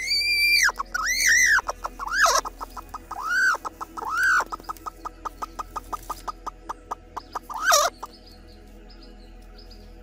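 Broody hen sitting on eggs squawking with loud arching calls as a hand reaches under her, about six calls in all, the last one near the end. Between the calls comes a rapid, even run of short clucks, about five a second.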